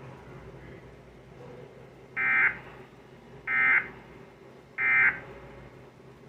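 Emergency Alert System end-of-message data bursts: three short, identical buzzy digital squawks about a second and a quarter apart, closing the broadcast warning.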